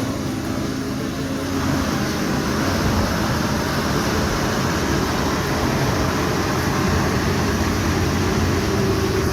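Heavy vehicle engine running steadily, a low even drone under a broad noisy hiss.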